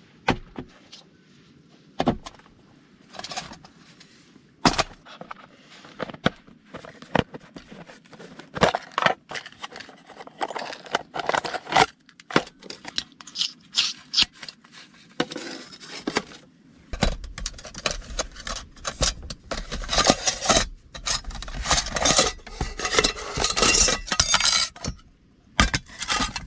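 Hands setting up a small portable gas stove on a wooden board: repeated knocks, scrapes and metal clinks as a gas canister and its hose fitting are handled and a cookpot is set out. The handling grows busier, with continuous rustling, in the second half.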